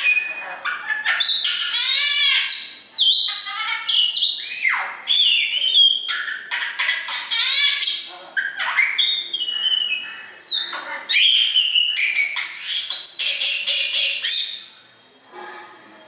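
Caged pet birds, a common myna and a cockatiel, calling in a busy, unbroken stream of varied whistles, squawks and harsh rasping notes, many sliding up or down in pitch. The calling stops abruptly about a second and a half before the end, with one faint call after.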